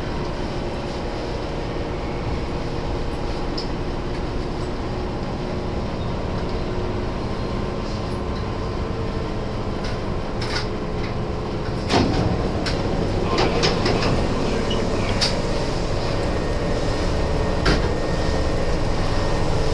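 Nose Electric Railway 1700 series commuter train arriving at its terminus, heard from inside: a steady hum of the train's running gear and equipment. A sudden clunk comes about twelve seconds in, after which the sound is a little louder, with scattered clicks and rattles.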